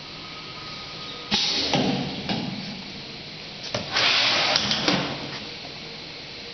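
Pneumatic hot plate filter-welding machine cycling: two loud bursts of air hiss with clunks, the first about a second in and the second about four seconds in, over a faint steady machine hum.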